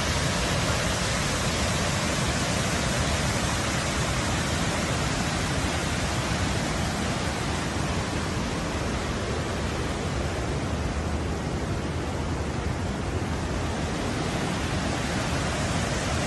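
Steady, even rushing of a fast-flowing flooded river carrying muddy water.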